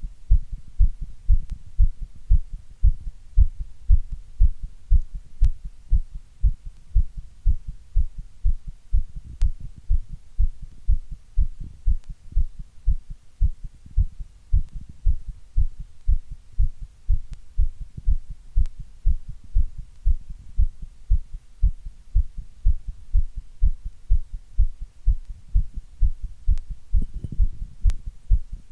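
Heartbeat: steady, evenly paced low double thumps (lub-dub), roughly one and a half beats a second, with a brief rustle near the end.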